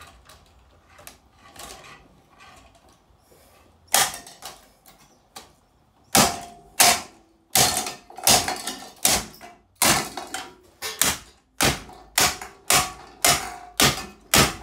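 Repeated hard knocks and clatters on a running Lanson ceiling fan as it is battered to make it jam and seize. After a quieter start there is one loud knock about four seconds in, then the blows come about two a second, each with a short ring.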